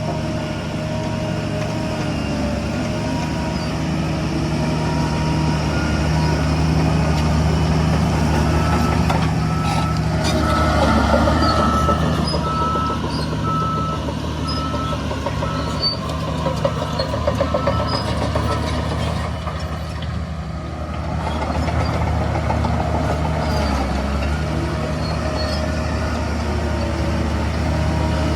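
Heavy diesel earthmoving machinery running steadily with a low drone. For several seconds in the middle a reversing alarm beeps in an even series, with some short clattering while it sounds.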